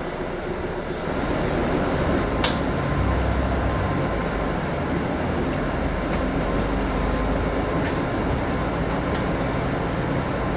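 Steady rumble of a city bus on the move, getting a little louder about a second in, with a sharp click or rattle a couple of seconds in and two fainter ones near the end.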